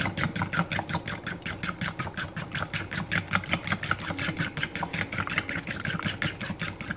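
Eggs being beaten in a bowl, the utensil clicking against the bowl in a fast, even rhythm of about seven strokes a second.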